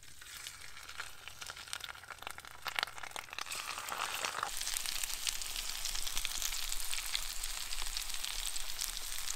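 Meat deep frying in hot oil: a dense sizzle full of fine crackles and pops, growing steadily louder.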